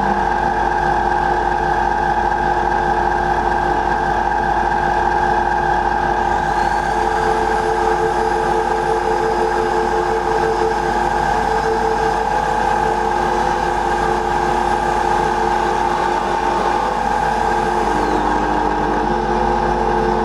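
Vacuum cleaner motor running loudly and steadily with a droning whine. Held notes at changing pitches sound over it. A high-pitched whine rises about six seconds in and drops away near the end.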